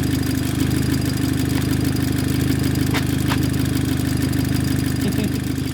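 Volkswagen Jetta 2.0T FSI turbocharged four-cylinder engine idling steadily on freshly installed spark plugs. Two faint clicks come about three seconds in.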